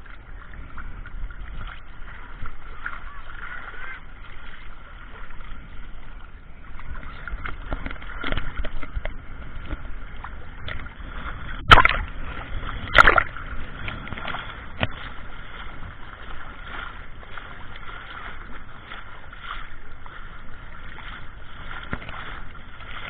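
Sea water sloshing and splashing, heard muffled through a camera's waterproof housing, with many small knocks and two sharp, louder hits about twelve and thirteen seconds in.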